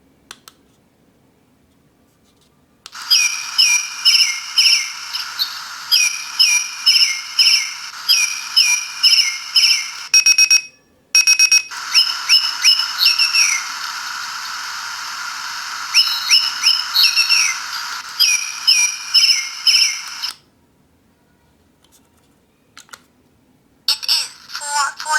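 Bird alarm clock sounding its alarm: recorded bird tweets played through the clock's small speaker in quick repeated chirps over a steady hiss. The tweets stop briefly about a third of the way in, cut off a few seconds before the end, then start again near the end.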